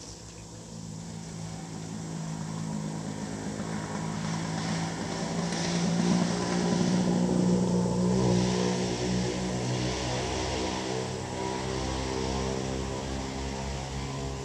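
Engine of a passing vehicle, growing louder, loudest about six to eight seconds in, then dropping in pitch and fading slowly.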